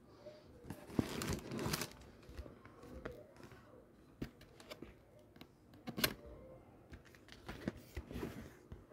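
Cardboard and paper handling as a shoebox is opened inside its shipping carton: scattered light taps, scrapes and brief rustles of the lid and tissue-paper wrapping, with sharper knocks about a second in and around six seconds.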